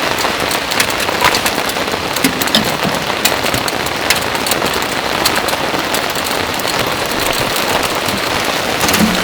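Steady heavy rain falling, an even hiss with many sharp drop ticks scattered through it and a few dull low knocks of heavier drops.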